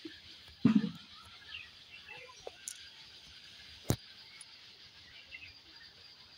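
Outdoor ambience with faint scattered bird chirps. A loud low thump comes under a second in, and a sharp click of a finger on the phone comes about four seconds in.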